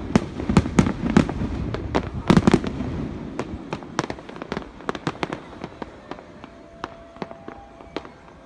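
Fireworks display: a rapid string of sharp bangs and crackles with a low rumble, packed close together for the first three seconds, then thinning to scattered single cracks toward the end.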